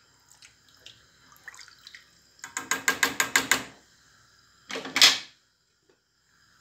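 Silicone spatula working in water-thin lentil soup in a stainless steel pot: liquid swishing in a quick run of about eight strokes, then one short louder clatter about five seconds in.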